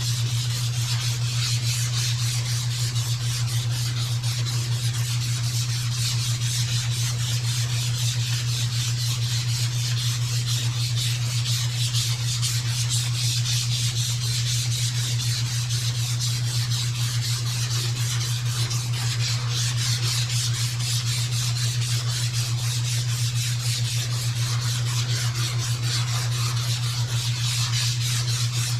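Hand sanding block with sandpaper rubbing back and forth over high-build primer on a car body panel, giving a continuous rasping scrape, over a constant low hum.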